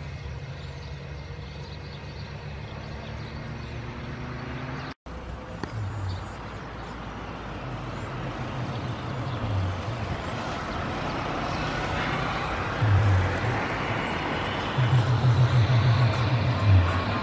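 Jet engines of a taxiing Airbus A319 running at low taxi power, growing steadily louder through the second half, with several low rumbling bursts.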